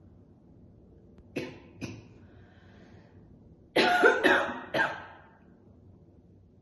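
A woman's smoker's cough while smoking: two short coughs, then a louder fit of three coughs in quick succession.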